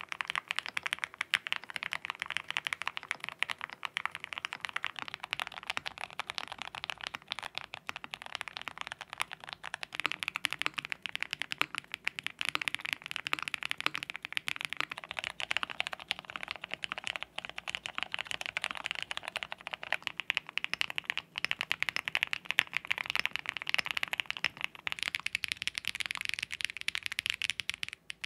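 Fast continuous typing on several custom mechanical keyboards with lubed switches, heard one after another, so the tone of the keystrokes shifts several times. The keystrokes make dense, overlapping clacks.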